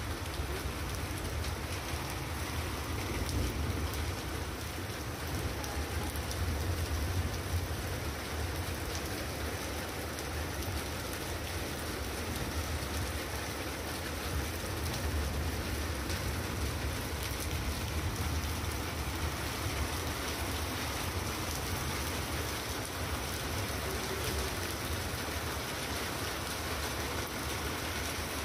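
A hail storm: hail and rain falling steadily, many small ticks over an even rush, with a low rumble underneath.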